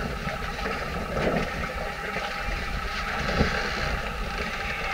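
Sailboat's auxiliary engine running steadily as the boat motors along, with wind buffeting the microphone.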